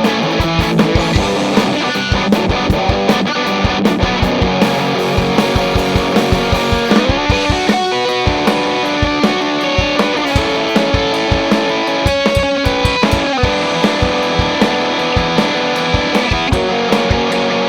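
Electric guitar, a Gibson Les Paul played through a Fuzzrocious Demon overdrive pedal at low-to-medium gain, playing rock over a steady drum beat.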